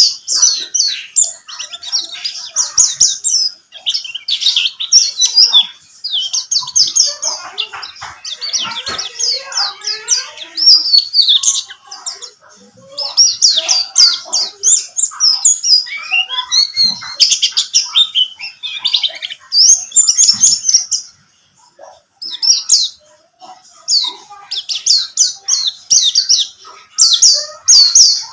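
Oriental white-eye of the buxtoni race (pleci buxtoni) singing a fast, chattering song of high chirps in bursts, used as a lure to set other white-eyes singing. The song breaks off for a few seconds about three-quarters of the way through, then resumes.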